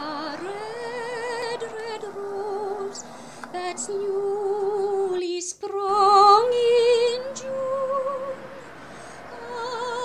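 Background music: a slow melody of long held notes with wide vibrato, sung by a female voice.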